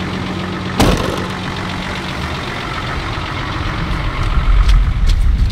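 Off-road 4x4's engine idling with a steady hum, and a sharp knock just under a second in. From about four seconds on, a low rumble grows louder.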